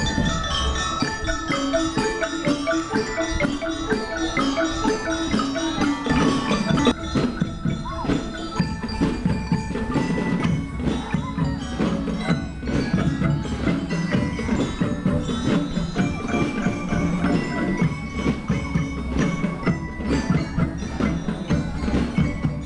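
Drum and lyre band playing: bell lyres ring out a stepping melody over a steady beat of snare and bass drums.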